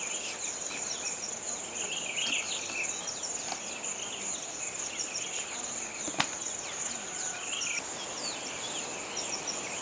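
Insects trilling in a steady high-pitched drone, with many short falling chirps over it and a single sharp click about six seconds in.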